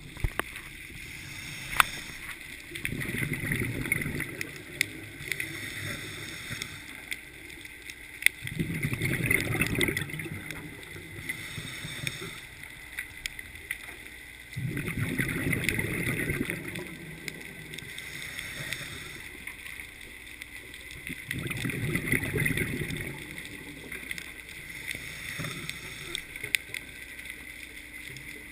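A scuba diver's exhaled breath bubbling out of the regulator, heard underwater through the camera housing. Low gurgling bursts of about two seconds each come roughly every six seconds, with scattered faint clicks between them.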